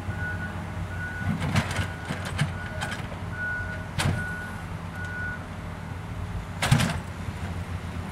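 A vehicle's backup alarm beeps steadily, one short tone about every 0.8 s, and stops about two-thirds of the way in, over the steady low rumble of an engine. A metal spoon scrapes and clinks a few times as soil is dug out of the test hole.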